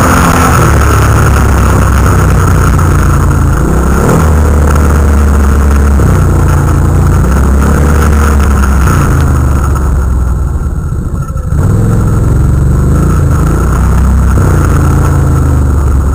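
Can-Am Renegade ATV's V-twin engine running hard under load, its revs rising and falling with the throttle. About two-thirds of the way through it eases off briefly, then picks up sharply again.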